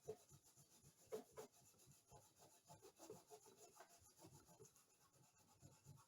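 Faint rubbing of a cloth rag on a cast bronze sculpture's surface, short irregular polishing strokes.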